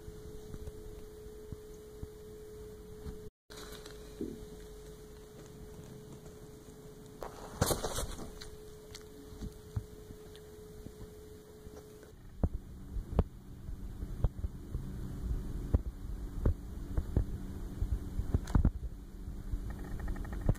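A steady electrical hum for the first half. Then, from about twelve seconds in, a ginger cat close up against the microphone: a low throbbing rumble of purring, with fur brushing and knocking on the mic.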